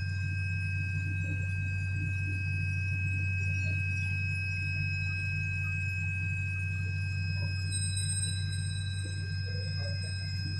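Laser cutting machine running as it cuts an acrylic sheet: a steady low hum with two steady high-pitched whining tones above it.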